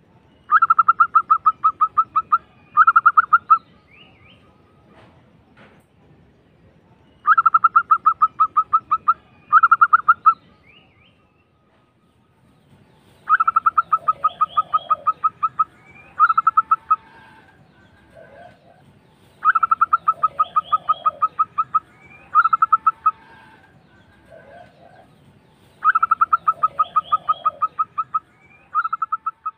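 Zebra dove (perkutut) singing its rolling, rapidly pulsed cooing song: five phrases about six seconds apart, each a long trill followed by a short one.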